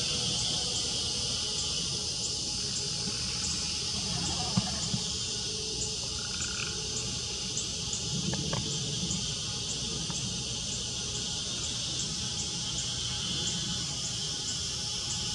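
A steady high buzz of insects, with a cricket chirping at even intervals above it. A brief tap sounds about four and a half seconds in.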